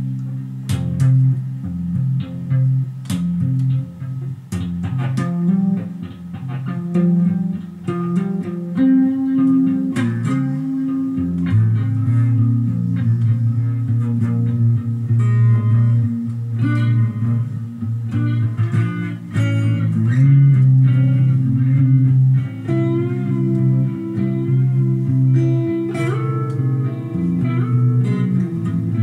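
Guitar played solo: plucked notes and chords over held low notes, with wavering, bent notes near the end.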